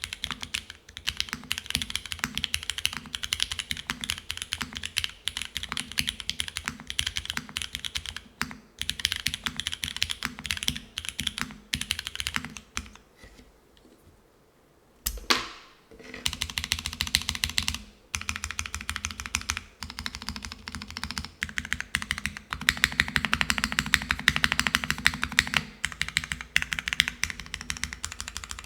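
Fast typing on a Geonworks F1-8X V2 mechanical keyboard with linear Cherry HG Black switches and GMK Classic Beige keycaps, on an aluminium plate with O-ring gasket mount and no foam. The typing pauses for about two seconds halfway through, a single heavier thud follows, and then rapid typing resumes.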